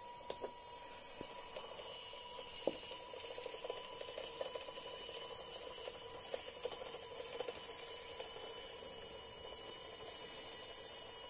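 Small electric motor of a DIY LEGO-compatible monorail engine, run from a 9 V battery, whirring steadily with a constant whine as it drives along the toothed monorail track, with irregular light clicks and rattles from the drive.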